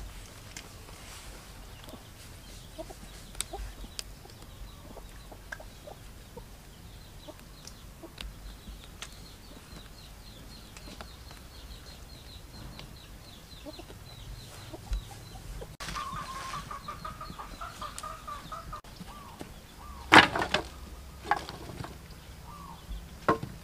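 A chicken clucking, with one drawn-out call about two-thirds of the way in, over a quiet rural background. Near the end, wooden sticks knock and clatter sharply a few times as they are put down on the ground; these are the loudest sounds.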